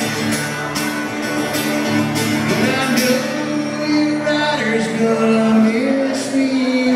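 A man singing long held notes while strumming an acoustic guitar, played live.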